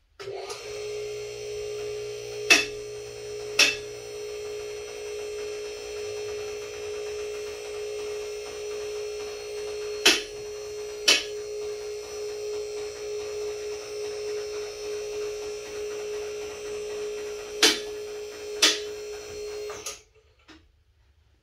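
The electric hydraulic power unit of a MaxJax M6K two-post lift runs with a steady humming whine while raising a pickup truck. It cuts off about 20 seconds in. Three pairs of loud clicks, a second apart within each pair, come as the lift rises, typical of the column safety locks catching.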